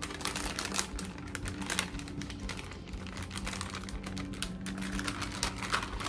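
Plastic packaging of sliced cheese crinkling and crackling as a hand rummages in the package and pulls a slice out: a fast, irregular run of small clicks and rustles, over a faint low steady hum.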